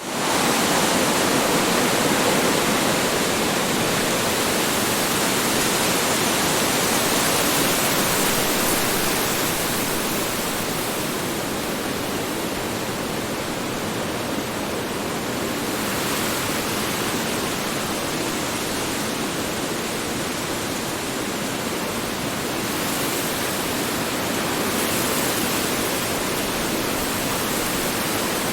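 Strong wind blowing steadily, a dense rushing noise that eases a little in the middle and swells again near the end.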